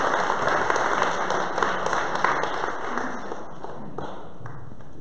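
Audience applauding, a dense patter of claps that dies away about three seconds in.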